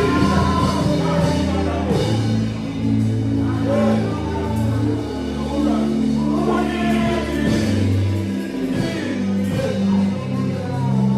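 Gospel music with singing, over sustained bass and keyboard notes that change every second or two.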